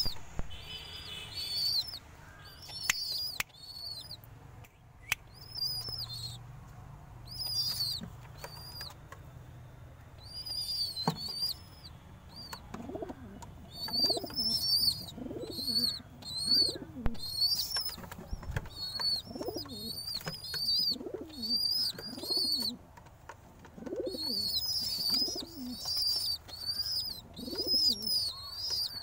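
Pigeons cooing: low calls that rise and fall, repeating about once a second from around the middle onward. Over them, high, rapid chirping from other birds and a few sharp clicks.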